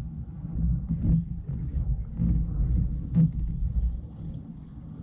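Low rumble on the microphone while a hooked fish is played on a spinning rod and reel, with a few sharp clicks and knocks of gear handling, the loudest about one and three seconds in.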